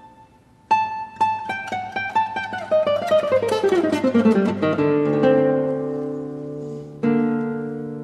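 Solo classical guitar playing: after a brief fade, a run of quick plucked notes falls steadily in pitch into ringing low chords. A fresh chord is struck about seven seconds in.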